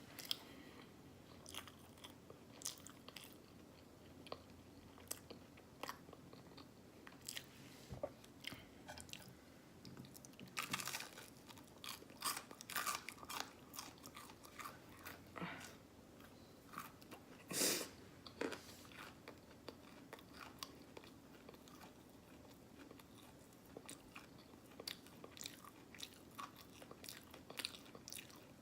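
Close-miked mouth sounds of a person eating syrupy waffles: irregular chewing with wet lip smacks and clicks, and one louder, longer smack a little past halfway.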